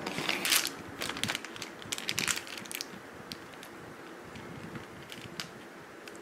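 Paper burger wrapper crinkling as the burger is unwrapped and handled, in several short bursts over the first two seconds or so, then a few soft clicks.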